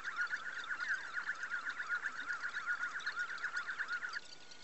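101Hero delta 3D printer's stepper motors whining as the print head moves, the pitch warbling up and down about six or seven times a second. The whine stops suddenly about four seconds in, leaving a faint steady tone.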